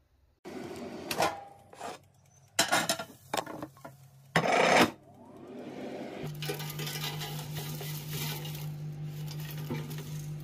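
Dishes and cookware clattering, with several sharp knocks over the first five seconds. A steady electric appliance hum begins about six seconds in.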